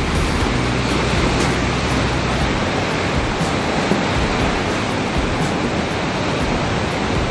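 Steady rushing noise of sea surf and wind.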